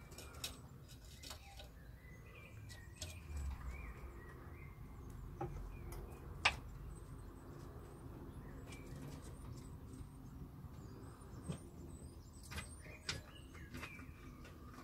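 Faint high chirps and twitters with scattered sharp clicks and taps; the loudest, a single sharp click, comes about six and a half seconds in.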